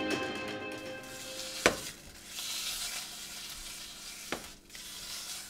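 Food sizzling in a frying pan on the stove, with two sharp knocks, the louder about a second and a half in and a smaller one near the end. The tail of some music fades out in the first second.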